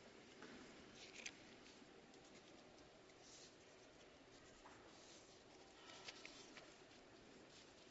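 Near silence: room tone with a few faint rustles and small clicks.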